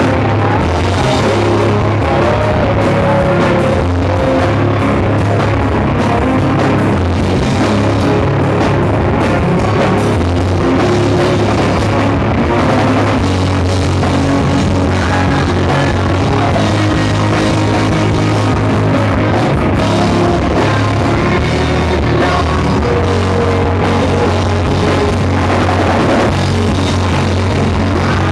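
Rock band playing live, loud and continuous, with a full drum kit and guitars.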